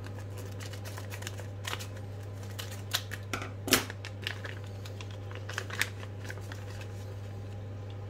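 Plastic parts bag being cut open with scissors and handled: irregular crinkles, snips and clicks, the sharpest a little under four seconds in, over a steady low hum.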